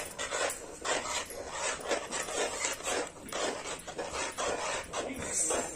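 Metal spatula stirring and scraping a besan curry in a steel kadai, repeated scraping strokes about two or three a second. The curry is kept moving so it does not turn lumpy or stick.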